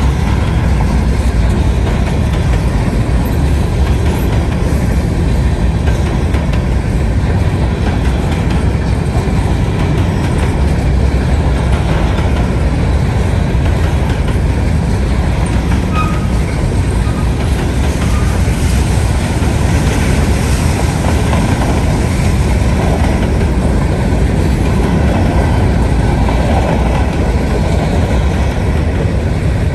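Freight train rolling past at steady speed: a continuous low rumble of wheels on rail with some clatter over the joints and a few faint, short wheel squeaks around the middle.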